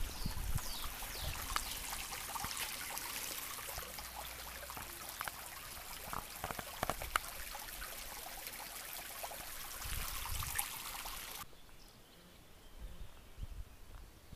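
Small stream running with a steady rushing hiss, with a few light knocks over it; the water sound cuts off abruptly about eleven seconds in.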